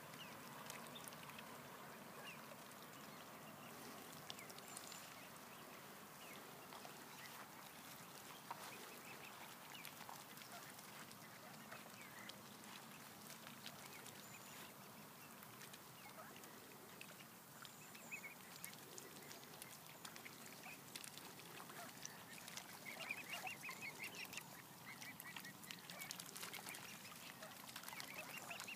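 Faint waterfowl calls from ducks and mute swans with cygnets feeding at the water's surface: short soft calls come and go, with a quicker run of them late on, over small pecking and dabbling clicks.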